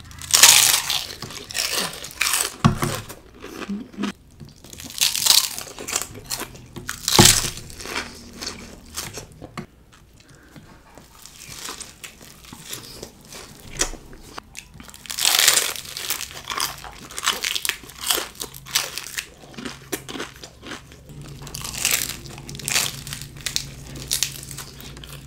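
Crunchy bites into crispy deep-fried pork intestine (chicharon bulaklak), followed by chewing. The loud crunches come in clusters a few seconds apart.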